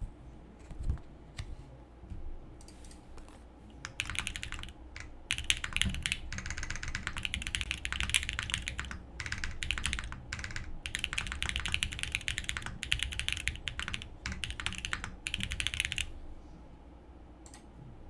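Fast typing on a custom mechanical keyboard, a SingaKBD Unikorn R2.1 with Harimau tactile switches on an FR4 plate and GMK keycaps. A few scattered clicks come first, then steady runs of keystrokes from about four seconds in, with brief pauses between bursts, stopping a couple of seconds before the end.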